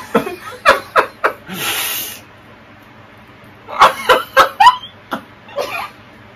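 Two people laughing in short bursts, one of them through a mouthguard cheek retractor that holds his lips open. A long breathy wheeze comes just before two seconds in, and a second cluster of laughs comes around four seconds in.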